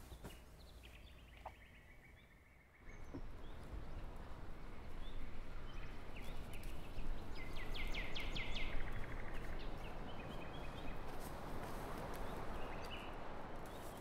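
Faint bird chirps over quiet room tone, then from about three seconds in a steady rush of wind and surf with birds calling and trilling over it.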